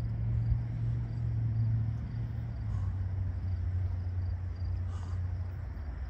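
A steady low engine hum, easing slightly towards the end, with two faint short high ticks.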